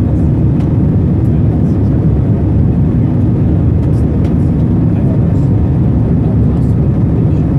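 Steady jet engine and airflow noise heard inside an airliner cabin during the climb after takeoff, a deep even rumble with no change in level.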